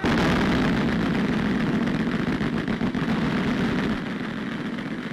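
A line of Vickers .303 water-cooled machine guns firing together, their rapid shots merging into one dense, continuous rattle that starts suddenly and eases slightly about four seconds in.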